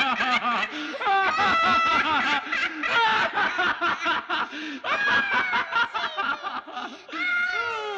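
A person laughing in quick, repeated bursts, trailing off in a long falling vocal slide near the end.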